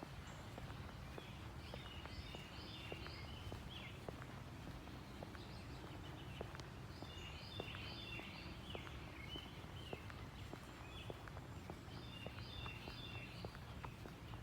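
Footsteps at a steady walking pace, about two a second, while small birds chirp in three short bursts of song. A steady low rumble runs underneath.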